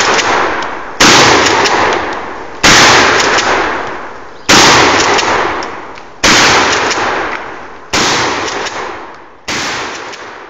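Shotgun fired six times in steady succession, about one and a half to two seconds apart, with alternating 2¾-inch 00 buckshot and 1 oz slug loads. Each shot trails off in a long echo, and the last echo cuts off suddenly near the end.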